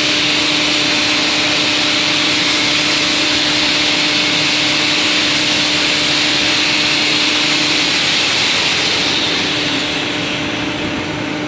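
Steady running noise of workshop machinery: a constant hiss with a steady hum underneath, easing off a little near the end.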